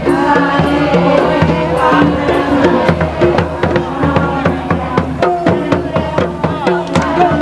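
Sundanese hadroh ensemble playing. Rebana frame drums beat a steady rhythm under a wavering melody line.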